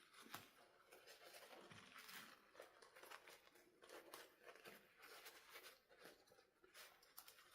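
Faint rustling and scattered light clicks of hands handling a toy and its packaging.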